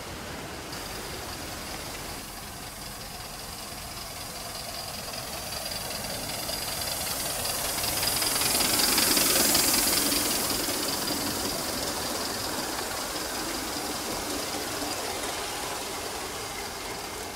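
Live-steam Gauge 1 model of a Great Northern S2 4-8-4 locomotive running with its freight train, steam hissing over its running noise. It grows louder to a peak about halfway through as it passes close, then fades as it moves away.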